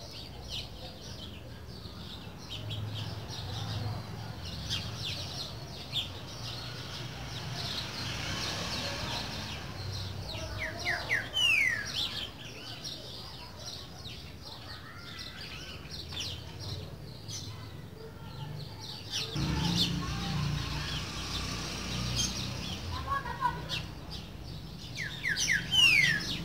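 Green-winged saltator (trinca-ferro) singing its 'boiadeiro' song in short whistled phrases. The clearest are falling whistles about eleven seconds in and again near the end. Busy chirping of other birds runs underneath, along with a low rumble.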